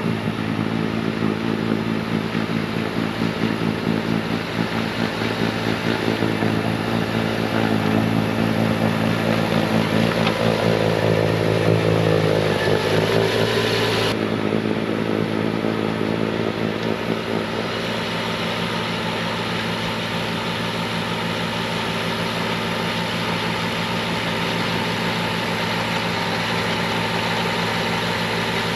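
Bobcat T66 compact track loader's diesel engine running at full throttle while driving a snowblower attachment, a steady drone. The pitch bends briefly around ten seconds in, and the sound changes abruptly about halfway through.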